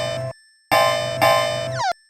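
Synthesized level-crossing bell sound effect, its bright bell-like tones struck and decaying. One ring stops about a third of a second in, then two strikes follow about half a second apart, and a quick rising slide comes near the end.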